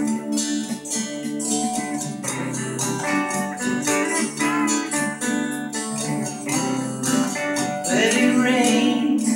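Music: an instrumental break in a song, led by strummed acoustic guitar.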